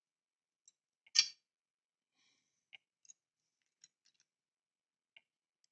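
Small model-kit parts clicking and tapping as they are handled and fitted together: one sharper click about a second in, then a few scattered faint ticks.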